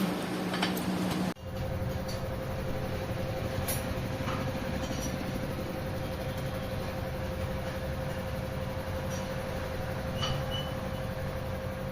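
A machine running steadily with a constant tone over a low rumble and a few light ticks. It follows an abrupt switch, about a second in, from a lower steady hum.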